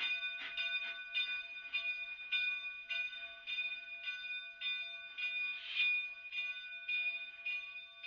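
Steam locomotive's bell ringing steadily, struck a little under twice a second, its ringing tones carrying on between strokes.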